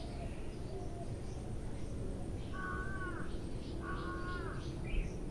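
A bird calls twice, each a short two-tone cry that bends down in pitch at its end, over a steady low rumble of noise. There is a small low bump near the end.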